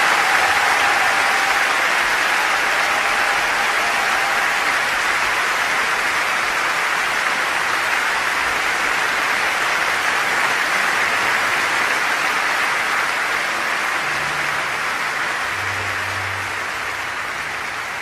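Large concert audience applauding, a dense even clapping that slowly fades over the last several seconds.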